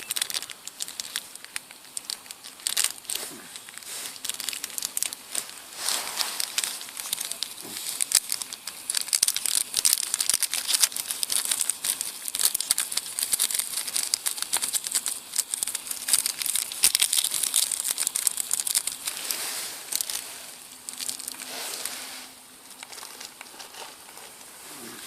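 Plastic sachet of chicken stock powder crinkling as it is handled and torn open: irregular rustling with many sharp crackles, thinning out near the end.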